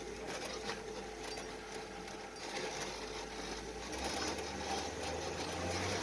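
5.7 Hemi V8 in a 1941 Dodge WC truck, running steadily under way and heard from inside the cab as a steady mechanical drone. Its low hum steps up in pitch about four seconds in.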